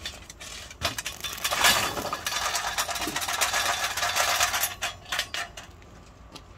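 Lit charcoal briquettes tumbling out of a metal chimney starter into a kettle grill's charcoal basket: a few sharp clinks about a second in, then a run of clattering and clinking that dies away near the end.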